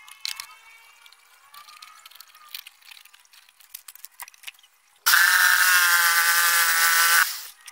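Light wooden knocks and clicks as a block is set against the stop of a jigsaw cutting station, then a Benz Werks 8089 jigsaw runs steadily for about two seconds, cutting through the wood, and stops suddenly.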